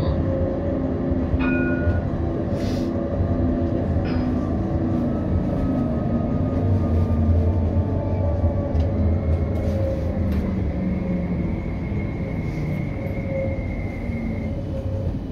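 CAF Urbos 3 tram running along its line, heard from inside the driver's cab: a steady low rumble of wheels on rail with the shifting hum of the traction drive. A thin high tone is held for several seconds in the second half.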